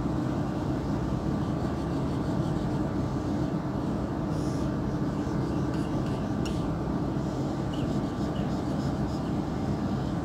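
Steady low mechanical hum and hiss of room noise, with a few faint short scratches of a marker drawing on a whiteboard.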